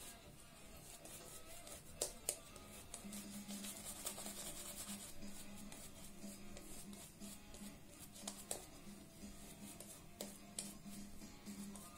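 Boar-bristle shaving brush working up shaving-soap lather: a faint, wet swishing and rubbing of bristles with small irregular ticks, over soft background music.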